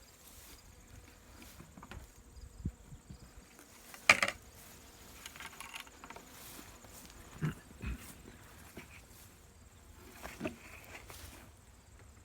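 Faint humming of honeybees from an opened hive, with scattered knocks and clunks of hive equipment being handled; the loudest knock comes about four seconds in.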